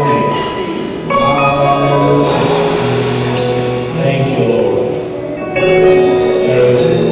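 Church music: sustained chords over held bass notes, the chord changing every second or two.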